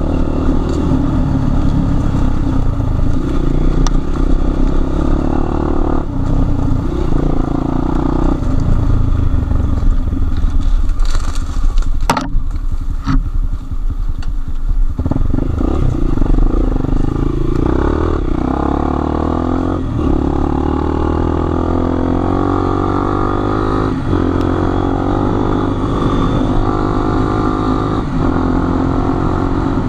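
Enduro motorcycle engine running under way, the revs rising and falling with the throttle. There is a sharp knock about halfway through and a short dip in the engine, then the revs climb steadily through the second half.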